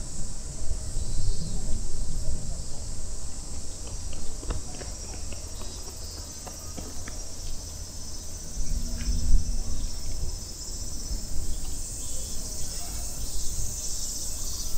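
Summer cicadas buzzing in a steady high, hissing chorus that swells louder in the last few seconds, over a low rumble of wind and movement.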